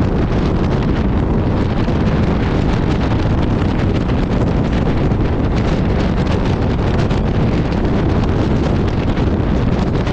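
Steady rush of wind buffeting the microphone as air streams past a moving express train, with the train's running noise beneath it.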